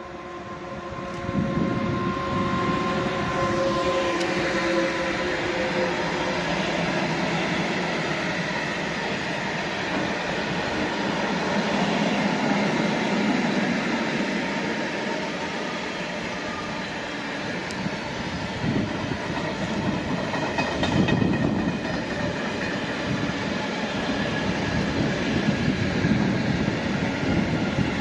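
Long freight train of tank wagons hauled by an electric locomotive passing close by. The wheels rumble and clatter on the rails, growing loud about a second in as the locomotive goes past. A few steady tones fade out over the first few seconds.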